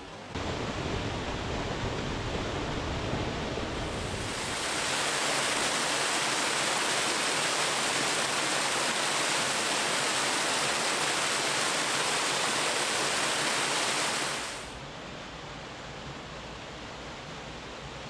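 Creek waterfall pouring over rocks, a steady rushing hiss. It gets much louder and brighter about four seconds in, then drops back to a softer rush near the end.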